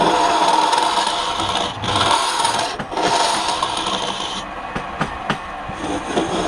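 Wood turning on a lathe with a tool held against it: a steady rasping scrape. It breaks off briefly about two and three seconds in, softens after about four and a half seconds with a few sharp clicks, then resumes near the end.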